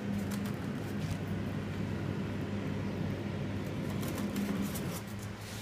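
Electric fan of an improvised air cooler running with a steady hum, with a few faint clicks.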